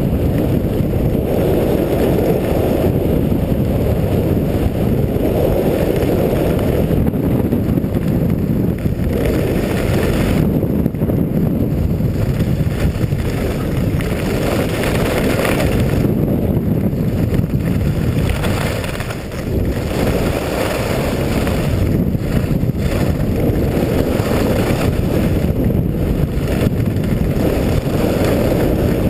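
Wind buffeting an action camera's microphone during a fast ski run, a loud, steady low rush, with the hiss and scrape of skis on packed snow underneath.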